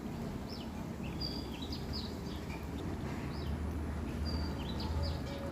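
Birds chirping: many short, scattered calls over a steady low background rumble.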